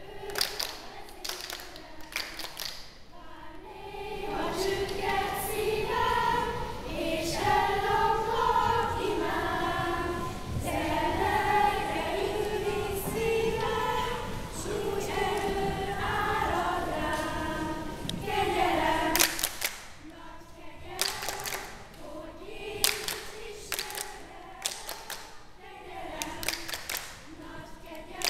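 A choir singing together in a church, loudest through the middle. Sharp percussive hits come about once a second at the start and again through the last third, over quieter singing.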